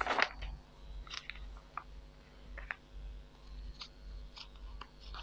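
Sheets of drawing paper being handled and shifted by hand: a brief rustle at the start, then a few short, scattered crinkles and rustles.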